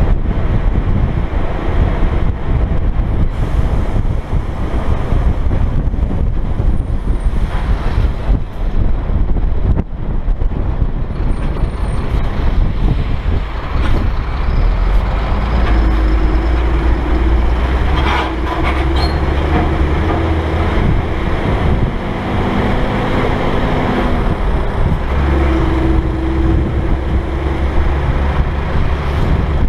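Wind buffeting the microphone of a camera mounted on a moving dump truck, over the drone of the truck's diesel engine at road speed. A steadier engine note comes through about halfway in.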